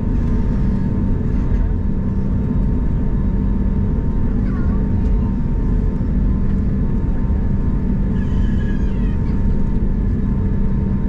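Steady low rumble of an Airbus A321neo's jet engines and the airframe rolling on the ground, heard from inside the cabin over the wing, with a constant hum and no change in level.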